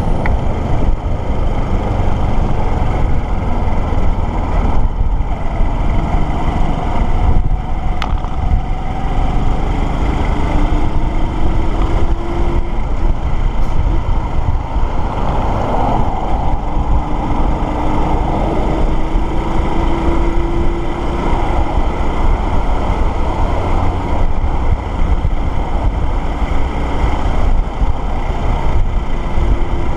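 Wind rushing over the microphone on a moving motorcycle, with the engine running underneath; its pitch rises a few times as the bike accelerates through the gears.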